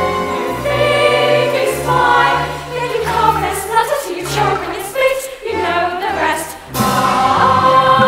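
A number from a live stage musical: a lead singer's voice over band accompaniment with a bass line stepping from note to note. Near the end the ensemble and music swell louder.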